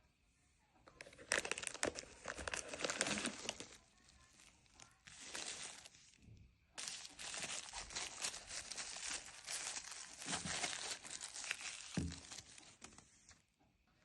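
Gift packaging being crumpled and torn open by hand: crackling in three bursts, the last and longest running most of the second half.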